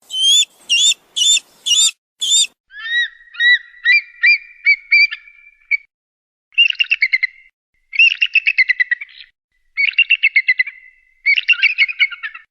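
Eagle calling: five sharp, high yelps in the first couple of seconds, then a run of quickening chirps, then four bouts of rapid chattering trills separated by short silences.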